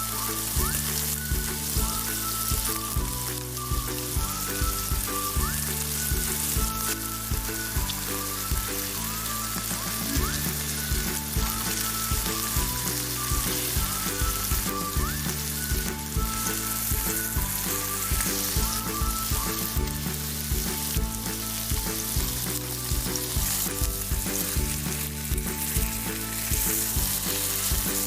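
Matar paneer frying and sizzling in a pan, a steady hiss, with background music with a melody and bass notes playing over it.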